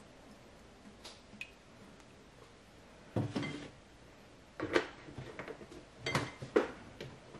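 Metal kitchenware clanking and clinking, four short clattering knocks from about three seconds in, each with a brief metallic ring.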